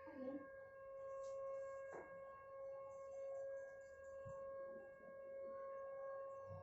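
The siren that marks the time to break the Ramadan fast, sounding one steady, faint tone with overtones above it. There is a brief click about two seconds in.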